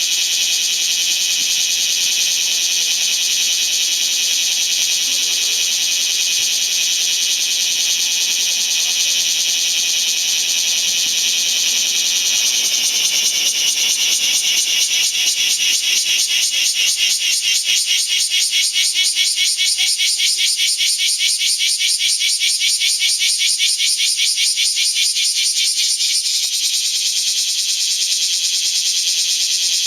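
Several bear cicadas (kumazemi) singing together in a dense, high-pitched buzz. About halfway in, a louder, rapidly pulsing song rises over the chorus and drops away a few seconds before the end.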